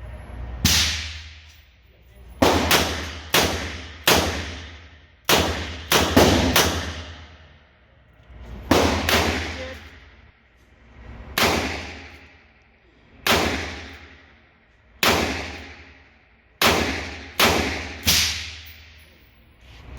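Handgun shots echoing in an indoor shooting range: about fifteen sharp cracks, irregularly spaced, some in quick pairs, each followed by a long reverberant decay.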